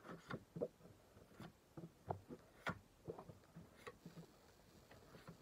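Oracle cards being drawn from a fanned deck and laid down on a cloth: faint, irregular soft taps and clicks of card against card.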